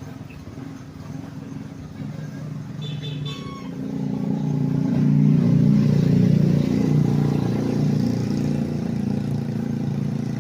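Fuel-injected engine running and revved, growing louder to a peak about five seconds in, then settling to a steady run. It is running again after its rat-chewed camshaft and crankshaft sensor wiring was spliced.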